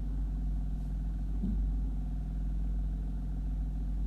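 A steady low hum with a buzz of evenly spaced overtones, unchanging throughout.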